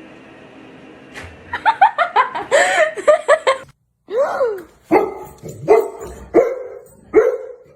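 A dog barking. A quick run of short, high yips starts about a second and a half in, then after a brief break come five louder barks, a little under a second apart.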